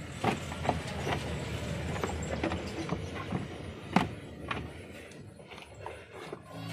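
Clicks, knocks and rattles of hand work on the car's dashboard AC unit, plastic parts and fittings being handled, with a sharp click about four seconds in, over a steady low hum.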